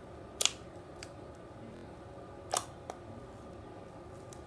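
Fingertips pressing a lump of stiff, crumbly fluffy slime, hardened by the store-bought solution, against a wooden tabletop. It gives a few short, sharp pops and clicks, the loudest about half a second in and another about two and a half seconds in.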